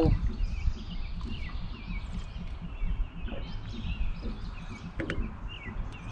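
Birds chirping and calling in short scattered notes over a steady low background rumble, with a sharp click about five seconds in.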